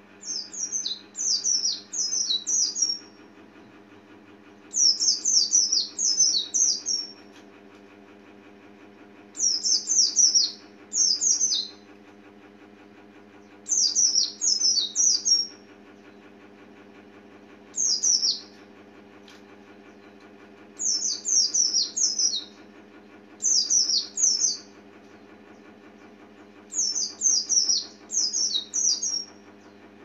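Caged white-eye (pleci) singing: short phrases of rapid, high, chirping notes, repeated every few seconds over a faint steady hum.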